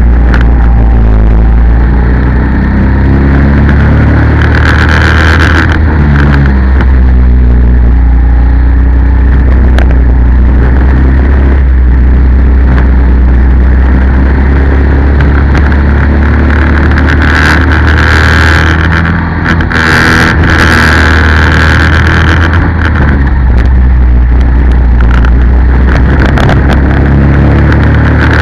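Go-kart engine running hard through a lap, its pitch rising and falling with the corners and straights over a heavy low rumble.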